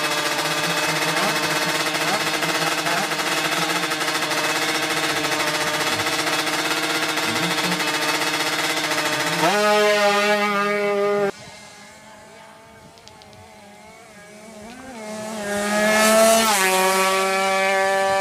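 Two-stroke Kawasaki Ninja drag-bike engine held at high revs on the start line, then launching with a jump in pitch about nine and a half seconds in. After a sudden cut it is heard again fainter, rising in pitch and growing louder toward the end as it runs down the strip.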